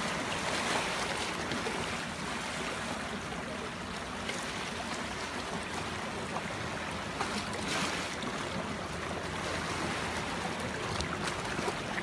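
Steady wash of shallow sea water and wind, with light splashing and sloshing from people wading waist-deep.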